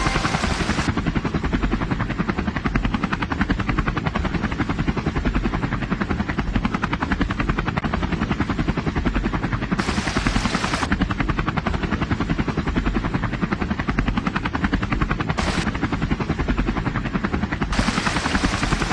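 Helicopter rotor sound, a fast, steady chopping with no pause.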